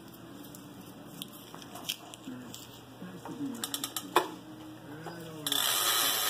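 Hard plastic of a toy lawn mower clicking and knocking as it is handled. About five and a half seconds in comes a loud, dense rattle lasting about two seconds as its pull-start cord is drawn.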